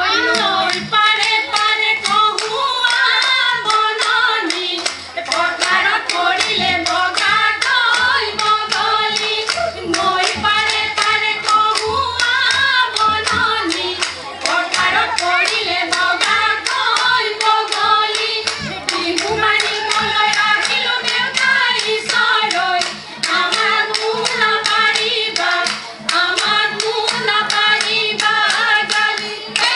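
A group of women singing an Assamese Jeng Bihu song over a fast, steady beat of hand claps and percussion.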